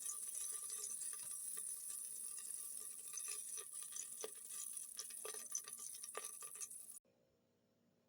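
Food sizzling in hot oil in a frying pan: a steady hiss with scattered crackles, which cuts off abruptly about seven seconds in.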